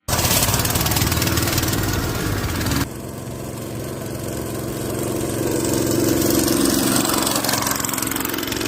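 Honda GX200 single-cylinder four-stroke engine of a homemade go-kart running steadily. About three seconds in the sound changes abruptly, becoming quieter and duller, then slowly grows louder again.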